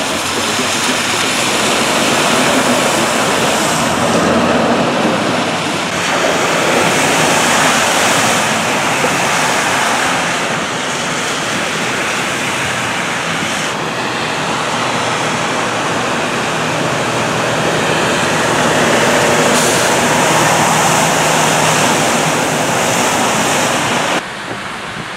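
Cars driving through a rain-flooded street, their tyres splashing and hissing through standing water over steady rain and rushing water. It swells louder several times as vehicles pass, then drops sharply shortly before the end.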